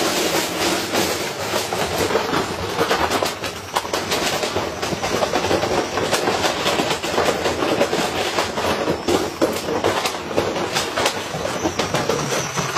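Washing machine spinning with a heavy, unbalanced load, its drum banging and rattling in a rapid, irregular run of knocks.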